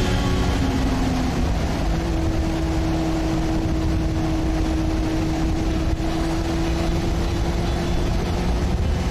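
Honda CB400 motorcycle engine running steadily at an even pitch, with a dense low rumble and hiss.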